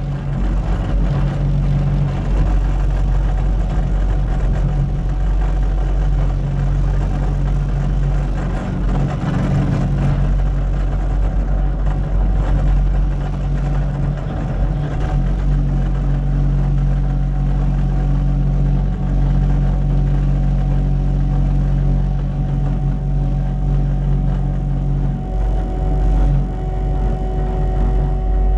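Diesel engine of a Cat 289D3 compact track loader running steadily at working revs, a continuous low drone; its tone changes about 25 seconds in.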